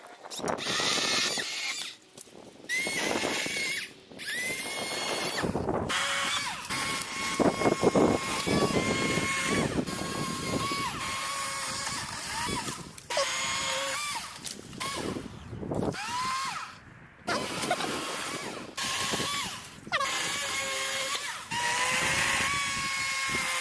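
Chainsaw running in repeated bursts with short pauses between, its pitch rising each time it revs up, as it cuts pine branches.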